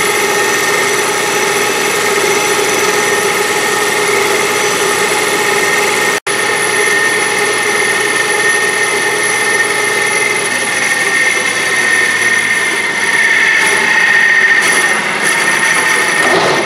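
Metal lathe taking a facing cut across a spinning cast aluminium blank: a steady machine whine with the hiss of the tool cutting. The sound cuts out for an instant about six seconds in.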